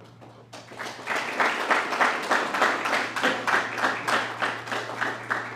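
Audience applauding, the clapping starting about half a second in and swelling.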